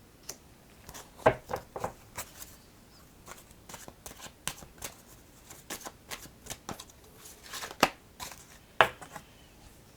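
Oracle cards being shuffled and handled: a run of soft card slaps and flicks, with sharper snaps about a second in, near eight seconds and near nine seconds.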